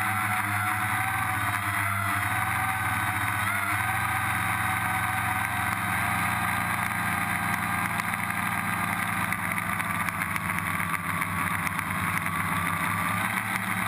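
Electric motors and propellers of a small camera-carrying drone whining steadily in flight, their pitch drifting slightly up and down with throttle changes, over rushing air noise.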